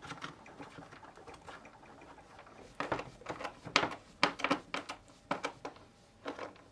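Faint, irregular clicks and knocks of hard plastic as a Karcher K3 pressure washer's detergent tank holder is pushed into place on the housing and screwed down, growing busier from about three seconds in.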